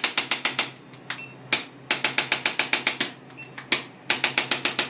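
Handheld chiropractic adjusting instrument firing three quick trains of sharp mechanical clicks, about eight a second, as it is worked over the thoracic spine.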